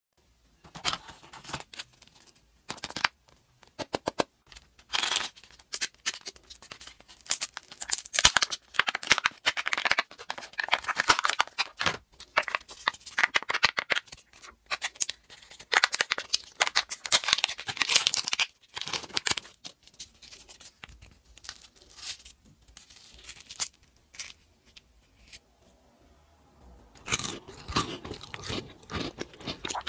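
Hands unwrapping and opening Kinder Joy eggs: the foil wrapper crinkling and tearing, and the plastic egg halves and lids clicking and crackling. The sounds come in many short, irregular bursts of clicks and rustles with quiet gaps between.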